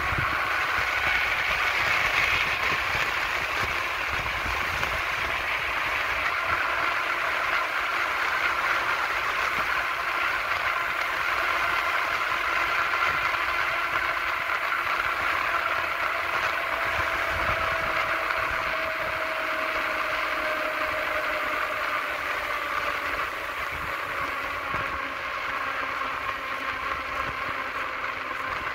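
Steady rushing roar of wheels rolling fast on asphalt, mixed with wind, on a downhill run. A faint whine under it slowly falls in pitch.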